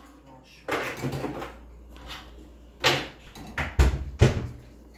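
Wire crate rattling and clanking in short bursts as savannah kittens clamber over its top, with two hard knocks near the end.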